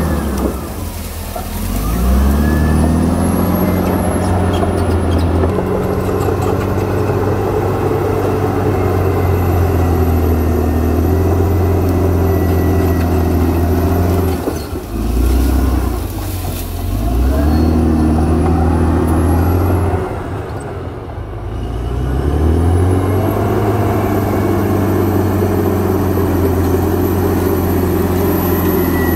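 CAT D7R crawler bulldozer's diesel engine running hard while pushing soil and brush. Its note dips and climbs back up three times.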